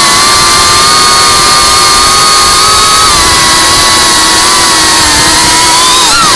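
FPV racing quadcopter's brushless motors and propellers whining at a steady pitch in cruising flight, heard from its onboard camera with a hiss of wind and prop wash. The pitch dips slightly about three seconds in, then swings up and down near the end as the throttle changes in a banking turn.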